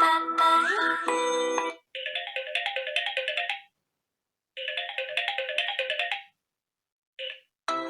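Samsung Galaxy A9 (2018) preset ringtones playing in turn. One melodic tone ends about two seconds in. A short, bright phrase of quick notes then plays twice with a silent gap between. After a brief blip, the next ringtone starts near the end.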